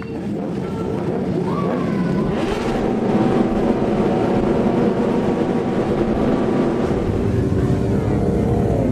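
Several sport motorcycles' engines running and revving as the bikes set off together in a convoy, the pitch rising about a second and a half in.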